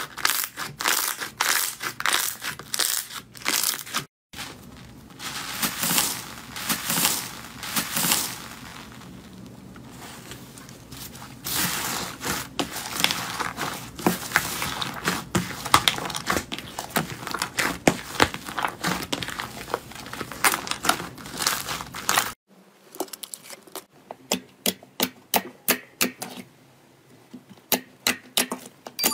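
Slime squeezed and kneaded by hand, crackling and squishing. From about 4 seconds in it is slime packed with foam beads, crunching and crackling almost without pause. After a sudden break about 22 seconds in, clear glossy slime pressed with the fingers gives separate sharp clicks and pops, about two a second.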